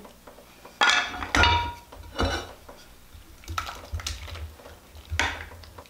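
Wooden spoon knocking and scraping against a ceramic mixing bowl as milk-soaked bread is tipped into a glass baking dish: a handful of separate clinks and soft thuds about a second apart, one with a short ring.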